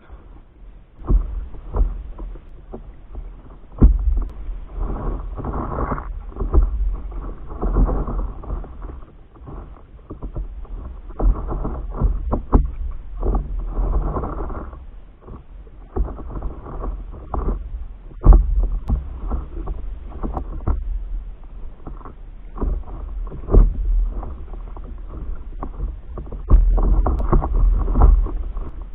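Water splashing and slapping against a stand-up paddleboard as it is paddled, in uneven surges every second or two with scattered sharp knocks. Wind rumbles on the microphone underneath.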